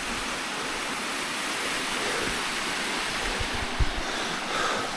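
Mountain stream rushing steadily, running higher and faster than usual after days of heavy rain. A few faint low thumps a little past halfway.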